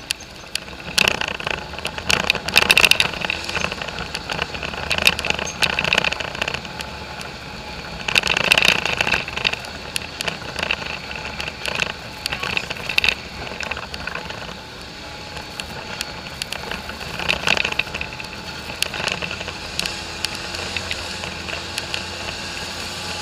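Polaris four-wheeler (ATV) engine running steadily as the machine rides a rough dirt trail, with irregular clattering and rattling in spells over the bumps.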